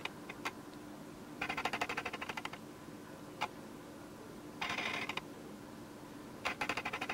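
Canon 50mm f/1.8 lens's autofocus motor driving focus in three buzzing bursts of rapid ticks, each about a second long, with a single click or two between them. It is not a quiet focus motor.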